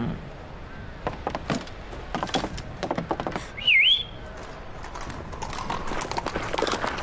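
Cartoon sound effects: a run of quick knocks and clatter, then a short whistle that swoops down and back up in pitch, the loudest sound, followed by a denser noise building toward the end.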